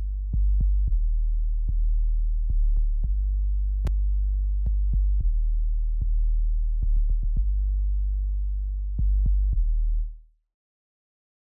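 FM sub-bass synth playing a looped log-drum bass line of deep held notes, each with a clicky attack. It stops abruptly about ten seconds in.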